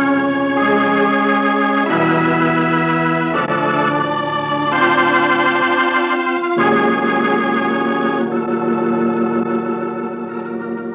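Organ music bridge marking a scene change: a run of held chords that change every second or so, fading out over the last few seconds.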